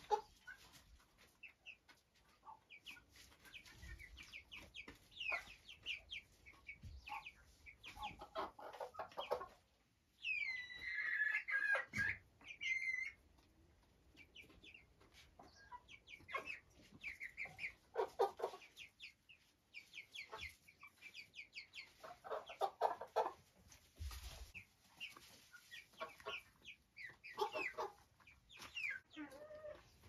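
Chickens clucking and chattering in many short calls, with one louder, longer call that rises and falls about ten seconds in.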